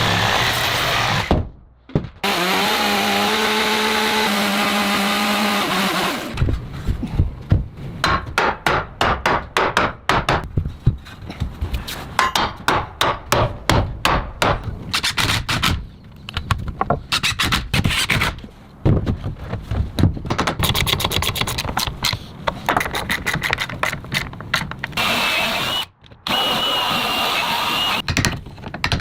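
Construction tool sounds on wood: a power tool runs steadily for a few seconds, then a long stretch of rapid repeated knocking and tapping, and near the end another power tool whines.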